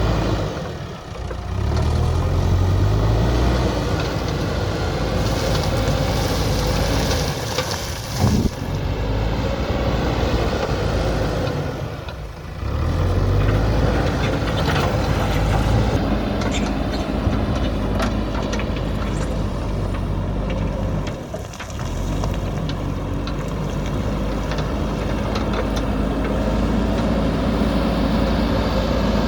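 Diesel engine of a JCB backhoe loader running steadily at working speed, with three or four brief drops in level spread through the stretch.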